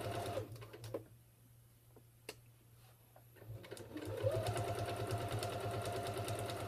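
Janome electric sewing machine stitching a straight seam through fabric and thick fusible fleece, running fast with rapid, even needle strokes. It slows and stops about half a second in, pauses with a couple of faint clicks, then speeds up again about four seconds in and runs steadily.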